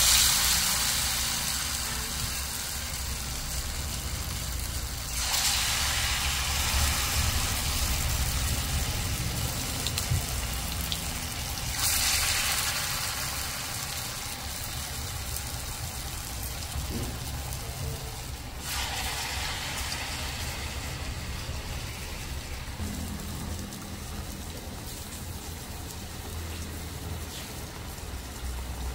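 Battered ripe plantain fritters deep-frying in hot oil in a steel pan: a steady, rain-like crackling sizzle. It is loudest at the start, swells sharply again about five, twelve and nineteen seconds in, and eases back after each swell.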